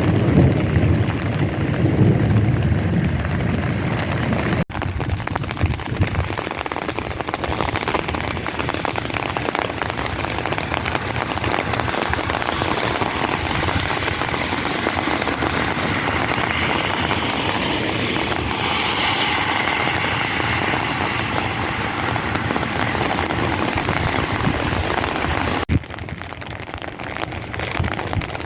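Steady rain falling in a monsoon storm, an even hiss of drops. A low rumble sits under it for the first few seconds.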